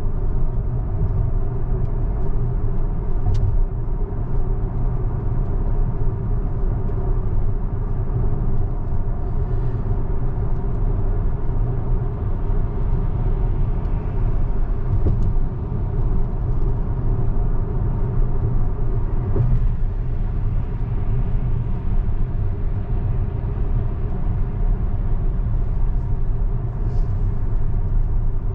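Steady road and tyre rumble inside a moving Tesla's cabin, with a few faint clicks.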